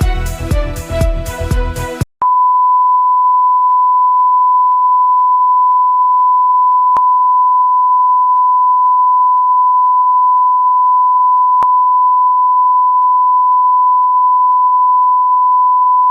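Background music for about two seconds, then it cuts off and a continuous single-pitch electronic tone, like a broadcast test tone, sounds steadily to the end, with two faint clicks along the way.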